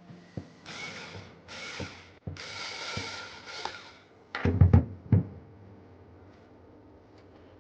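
Cordless power screwdriver driving the hard-drive mounting screws in four short whirring bursts, then a few loud knocks about four and a half seconds in.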